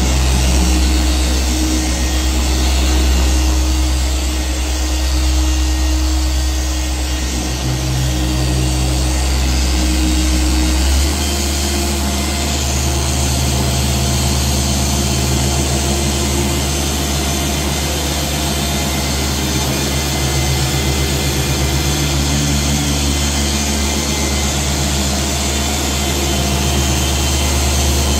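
Dual-action random orbital polisher with a yellow foam pad running steadily on black car paint, polishing out holograms. Its low hum changes pitch once about eleven seconds in, then holds steady.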